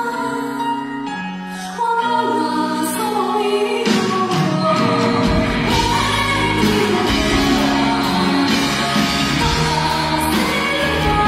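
Live pop band with a male lead singer: held, sustained sung notes over light backing, then about four seconds in the full band comes in with bass guitar and drums under the vocal.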